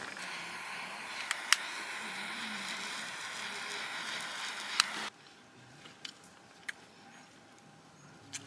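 Steady hiss of a pot of stew simmering on a camping stove, with a few sharp clinks. It cuts off suddenly about five seconds in, leaving a much quieter background with a few faint clicks.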